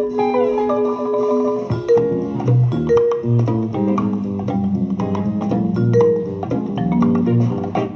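Music from a vinyl record playing on an Electrohome Montrose turntable, heard through McKinley powered bookshelf speakers over a Bluetooth link. It begins abruptly, with a steady bass line under a melody of struck notes.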